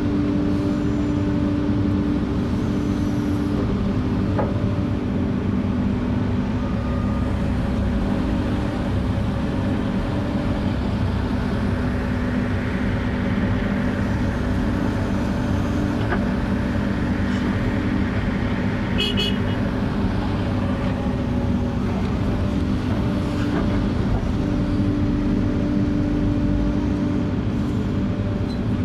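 Case 145D zero-swing excavator's diesel engine running steadily under working load, heard from inside the cab, with hydraulic tones rising and fading as the boom digs and swings to load a dump truck.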